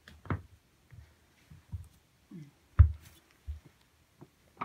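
Scattered light knocks and taps as cats paw and nose at an upturned plastic colander on carpet, with one louder thump nearly three seconds in.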